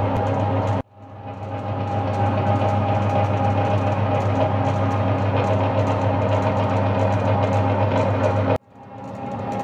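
Spiral dough mixer running, its electric motor and bowl drive making a steady hum as it kneads pizza dough. The sound cuts out abruptly twice, about a second in and near the end, and fades back up each time.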